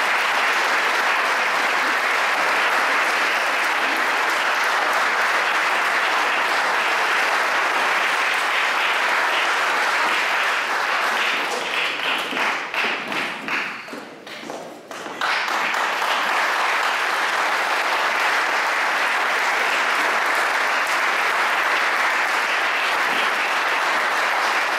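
Audience applauding steadily, thinning to scattered single claps about halfway through, then swelling back to full applause a moment later.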